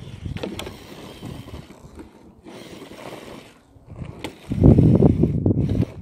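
Amewi Spirit radio-controlled rock crawler climbing over a wooden obstacle: its motor and drivetrain run with scrabbling tyres and scattered knocks. The sound is loudest from about four and a half seconds in.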